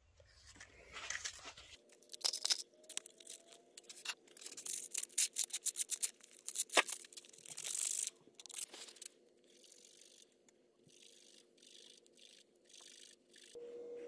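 Strip of 220-grit aluminium oxide sandpaper rubbing and scraping on a small metal part of an old boring head, with the paper crinkling and small clicks as it is handled; busiest in the first nine seconds or so, then only faint handling.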